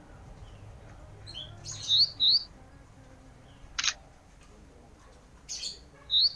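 Small songbird known as the 'ranting' singing: short rising chirps given in quick pairs, about two seconds in and again near the end, with a sharp single note between them and a rougher call a little after.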